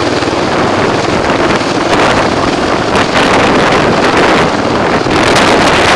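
Sikorsky MH-53 Pave Low heavy helicopter flying low overhead: loud, rapid rotor chop over the noise of its twin turboshaft engines, with rotor downwash buffeting the microphone.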